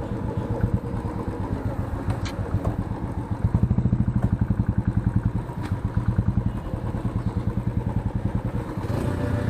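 Motorcycle engine and exhaust running with a steady low pulsing beat, growing louder for a few seconds in the middle as the rider opens the throttle.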